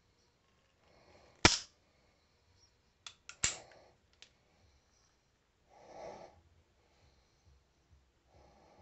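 Metal clicks from a Webley Mk VI airsoft CO2 revolver being handled as its top-break action is swung closed over a loaded cylinder. One sharp, loud click comes about a second and a half in, then a quick cluster of clicks around three and a half seconds, and a softer, brief rubbing sound near six seconds.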